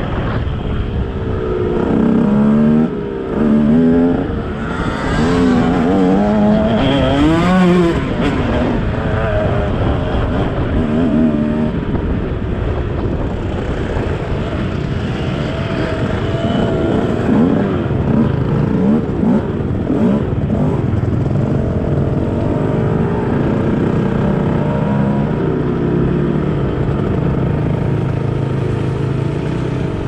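Motocross bike engine under the rider, revving up and down hard in the first several seconds, then running at lower, steadier revs with small rises and falls as the bike slows.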